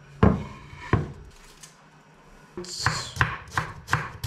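Wooden cutting board knocked down onto the kitchen counter twice, then a kitchen knife chopping an onion on the board, about three chops a second.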